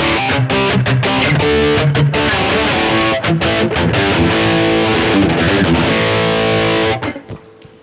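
Distorted high-gain electric guitar through a digital amp-modeling unit, playing a chugging rhythm riff with short muted stops, then held chords. The playing cuts off about seven seconds in, leaving a faint ring.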